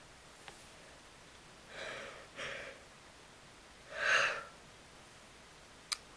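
A person's breaths close to the microphone: two short breaths about two seconds in, then a louder breath about four seconds in. A sharp click comes near the end.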